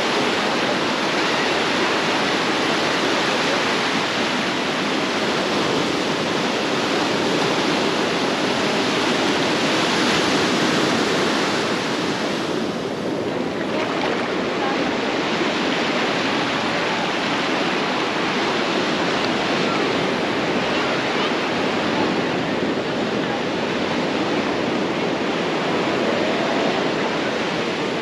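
Sea waves washing ashore: a steady rushing noise that eases briefly about halfway through.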